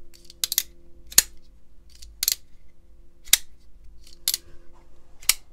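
Demko AD20.5 folding knife, fitted with aluminum scales, being snapped open and shut by hand. A sharp metallic click sounds about once a second as the blade swings and locks, six times in all, over a faint steady hum.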